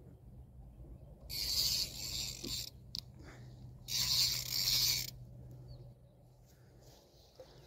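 Spinning reel's drag buzzing as a hooked fish pulls line off against it, in two bursts of about a second each.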